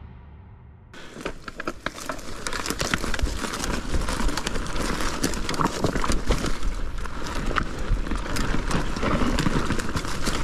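Mountain bike riding fast down a rough dirt trail: tyres crunching over dirt and stones, with a steady clatter of knocks and rattles from the chain and frame. It starts suddenly about a second in.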